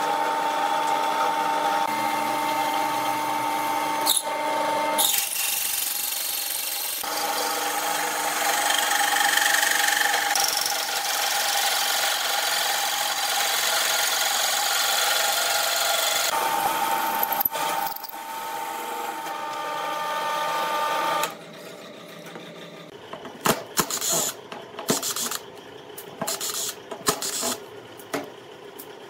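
Drill press motor running with a steady hum while its rotating cutting head grinds into a flat steel bar, harsh and loud through the middle stretch. The machine stops about two-thirds of the way through, and a series of light metallic clicks and clinks follows as small screws and metal tool parts are handled on a steel bench.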